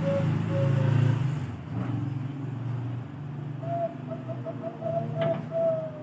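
Zebra dove (Bangkok-strain perkutut) cooing: a run of short coos in the first second, then another run starting a little before four seconds in that ends in longer drawn-out notes. A low steady rumble lies underneath, loudest in the first second or so.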